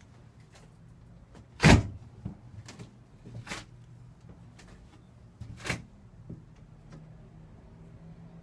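A series of sharp knocks and clacks, irregularly spaced. The loudest comes a little under two seconds in and the others are spread over the next five seconds. A faint low hum runs steadily underneath.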